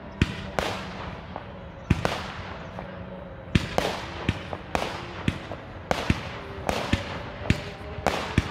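Aerial fireworks going off: an uneven run of sharp bangs with crackle after each, a few at first, then coming quickly, several a second, from about three and a half seconds in.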